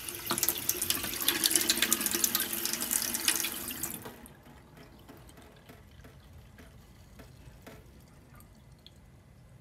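Kitchen tap running hard into a stainless steel sink, water splashing on the steel bowl. It is shut off about four seconds in, and only a few faint clicks follow.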